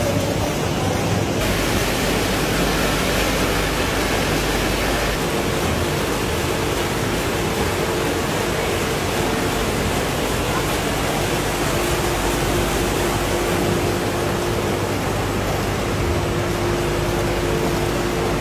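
Steady industrial noise of a potato chip production line's machinery, with conveyors and a seasoning drum running and a faint steady hum. The noise changes character about a second and a half in and again around five seconds in.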